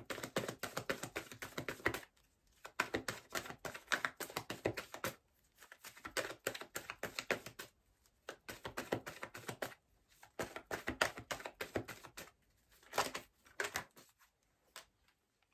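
Tarot cards being shuffled and handled by hand: about six bursts of rapid papery card clicks, each a second or two long, with short pauses between them.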